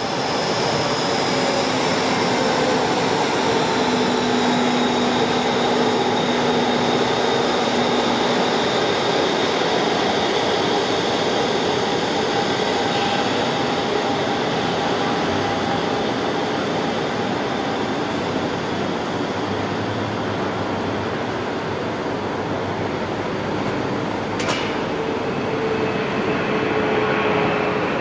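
Three Pratt & Whitney PW4460 turbofans of a McDonnell Douglas MD-11F freighter running at takeoff power: a steady, loud rush with a high whine that slowly falls in pitch. A brief sharp sound cuts in about 24 seconds in.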